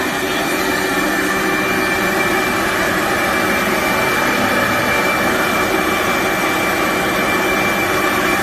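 BIDELI BD-M248 industrial grinder running: a steady, loud motor whir with a constant high whine on top.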